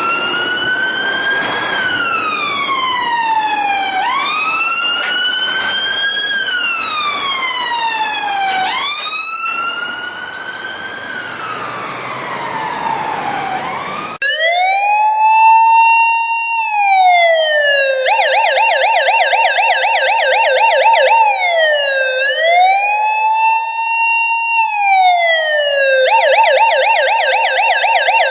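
A siren wailing, its pitch rising and falling about every four seconds, over a background hiss. About halfway through it cuts abruptly to a clearer siren that alternates slow wails with fast warbling yelp passages.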